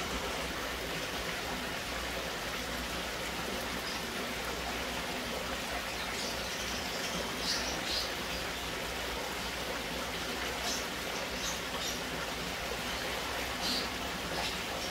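Steady rush of running water in a koi pond, with a few short, sharper splashes.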